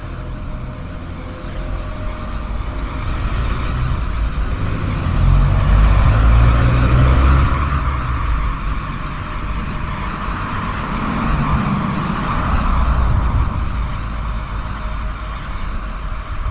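Road traffic noise: a steady low rumble that swells twice, about five seconds and about eleven seconds in, as vehicles pass.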